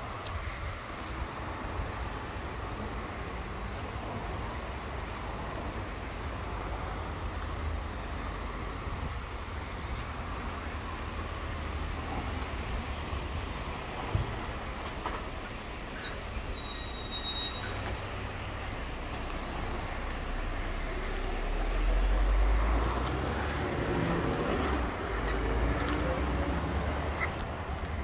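Steady low rumble of vehicle noise, growing louder for a few seconds about twenty seconds in.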